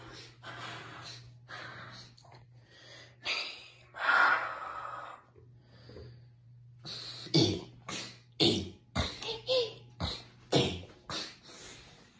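A person's breathy vocal sounds: hard exhales, then a quick run of short sharp snorts and puffs, over a steady low hum.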